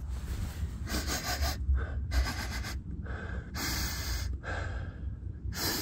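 A man sniffing the air in four short, noisy sniffs about a second and a half apart, checking for a burning electrical smell after the battery is reconnected.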